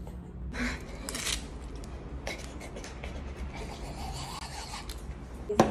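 Hands rubbing and rasping as dried white school glue peeled from the skin is rolled into a ball, with one sharp click near the end.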